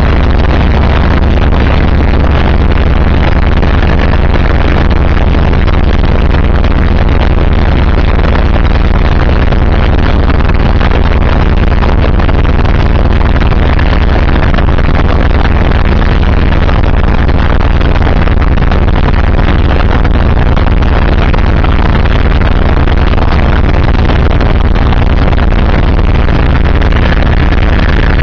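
Helicopter in flight, heard from on board: the engine and rotor make a loud, steady drone with a strong low hum under a broad rushing noise, unchanging throughout.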